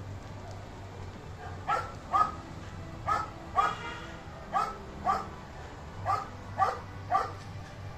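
A dog barking repeatedly, about ten barks, mostly in pairs about half a second apart, starting about a second and a half in.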